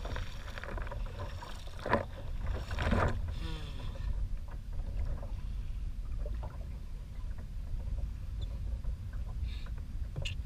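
Wind rumbling on the microphone and small waves lapping against the hull of a Wilderness Systems Tarpon 120 sit-on-top kayak, with a couple of louder bumps about two and three seconds in.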